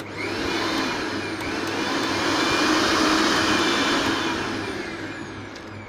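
Bajaj Glory 500-watt mixer grinder's motor switched on: it spins up with a rising whine in the first half second, runs at high speed, and eases off toward the end before cutting out.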